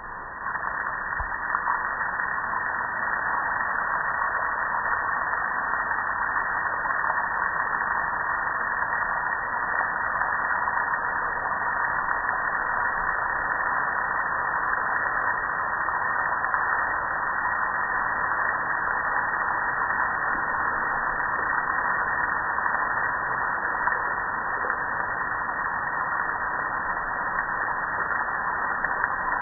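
A jet of water spraying steadily onto a soapy metal gas grill and running off onto concrete. The steady rush of spray starts about half a second in.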